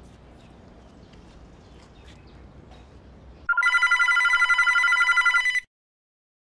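Faint background noise, then about three and a half seconds in a telephone starts ringing with a fast electronic trill. The ring lasts about two seconds and cuts off sharply.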